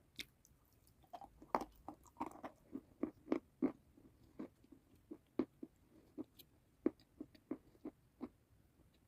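Close-up eating sounds: a bite into crunchy food near the start, then irregular crisp crunches of chewing that thin out and stop a little before the end.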